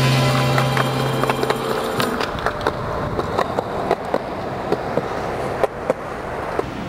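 Skateboard wheels rolling on pavement with a steady rumble, broken by frequent sharp clicks a few times a second. Music fades out about two seconds in.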